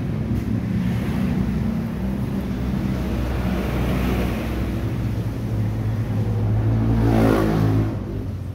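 A motor vehicle's engine running steadily, revving up briefly about seven seconds in and then dropping back.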